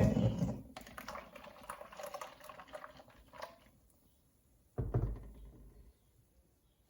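Blended oat milk mixture poured from a blender jug into a sieve: liquid splashing at first, tapering off to trickles and drips over a few seconds, then a second short splash about five seconds in.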